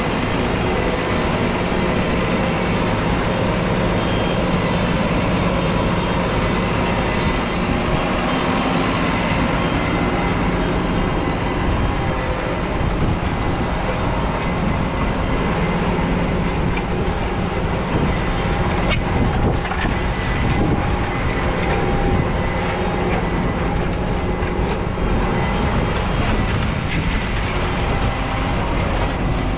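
McCormick X7.624 tractor's 6.7-litre six-cylinder diesel engine running steadily.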